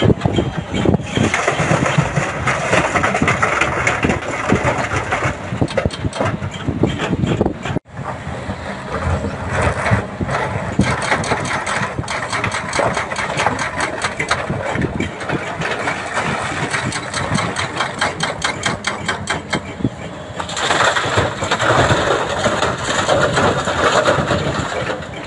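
Doosan DX340LCV excavator's diesel engine running under load as the bucket digs into a pile of broken rock and dumps it into a dump truck's steel bed. The rocks clatter and scrape, loudest near the start and again toward the end as the load drops into the truck.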